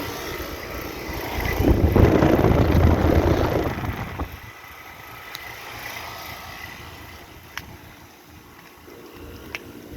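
Air conditioner condensing unit with a Copeland scroll compressor running. A rush of air swells loudly for about two seconds early on, then dies down to a quieter steady whir.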